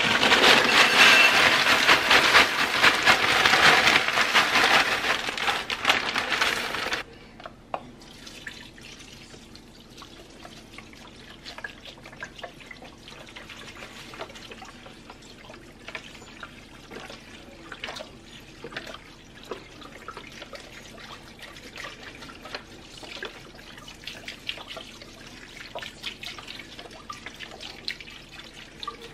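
Frozen shredded hash browns poured from a bag into a slow cooker, a loud rustling rush that stops abruptly about seven seconds in. Then chicken broth poured from a carton over the potatoes, a quieter steady trickle with small splashes and drips.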